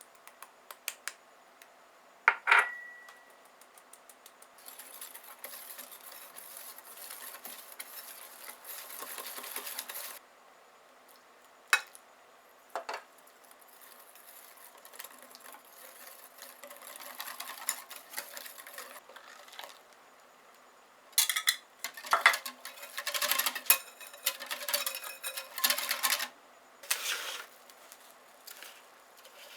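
A whisk and utensils working in a bowl while mixing ingredients. A sharp clink with a short ring comes about two seconds in, then a long stretch of whisking and scraping, and a run of quick clatters near the end.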